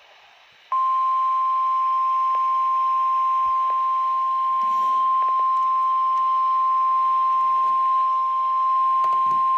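Emergency alert attention tone: a single steady tone near 1 kHz, the 1050 Hz warning alarm used by NOAA Weather Radio. It starts abruptly under a second in, holds unchanged for about nine seconds, and cuts off sharply. It signals that a warning message follows.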